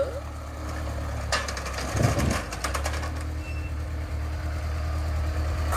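LoCost kit car's Vauxhall red-top four-cylinder engine running at a low, steady idle as the car is driven slowly up onto a trailer. About one and a half to two and a half seconds in there is a quick run of clanks and rattles as the wheels go over the metal ladder ramps.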